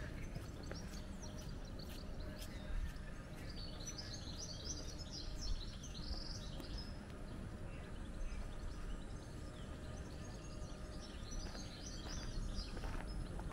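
Small birds chirping and twittering in two spells, about three seconds in and again near the end, over a steady low background rumble.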